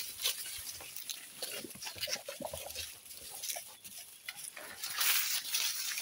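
Goat kids feeding on fresh leaves and cut grass: leaves rustling and crackling as they tug and chew, with a louder burst of rustling about five seconds in.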